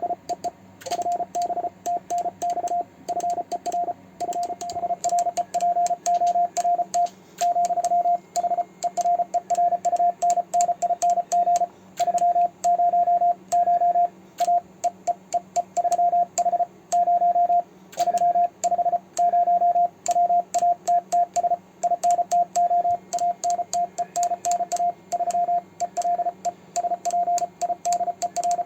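Morse code (CW) sent fast, around 33 words per minute: a single steady beep tone from a ham radio transceiver keyed on and off in rapid dits and dahs, with the light mechanical clicking of a homemade 3D-printed single-lever paddle's contacts.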